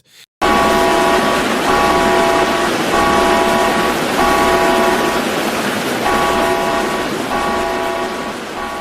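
A horn sounding in repeated blasts of about a second each, over a loud, steady rushing noise.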